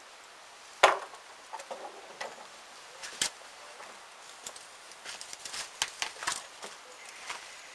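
Irregular knocks and clicks, with a sharp knock about a second in, another just after three seconds, and a run of smaller clicks in the second half.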